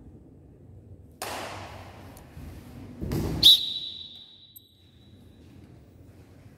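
Pencak silat staff form on a tiled floor: a brief rush of noise about a second in, then a heavy thud as the performer drops low, followed at once by a sharp knock from the wooden staff striking the tiles, with a high ringing tone that fades over about a second.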